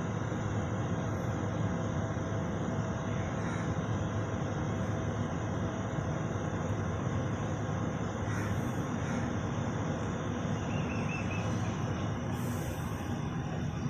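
Distant steady jet-engine rumble and roar from a PIA Boeing 777 rolling along the runway, even in level throughout.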